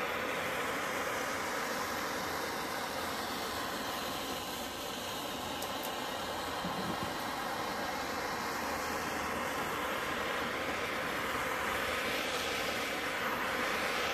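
Propane torch flame hissing steadily as it is played along the wooden frame to scorch the wood as a finish.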